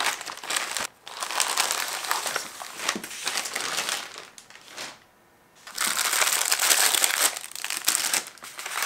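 Clear plastic packaging bags crinkling as hands handle and open them. The crinkling comes in bursts, with a short break about a second in and a longer pause about five seconds in.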